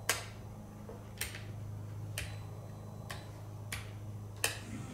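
A small motor in a 3-pound combat robot humming steadily, with six sharp clicks spaced roughly a second apart from its mechanism.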